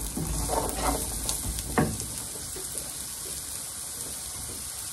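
Chopped celery, onion and garlic sizzling in oil in a non-stick frying pan, with a wooden spoon scraping and stirring through the first couple of seconds, then a steady sizzle.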